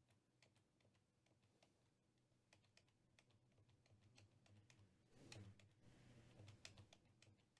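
Near silence with faint, scattered small clicks and a couple of faint soft knocks near the end.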